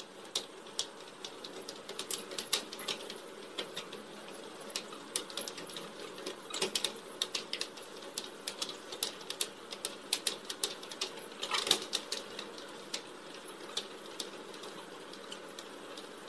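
A running treadmill with a steady motor hum, overlaid by irregular clicking and tapping of a dog's and a cat's claws on the moving belt.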